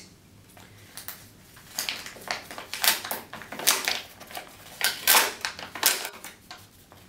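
A paper envelope being torn open and crinkled by hand, in a string of short rips and rustles.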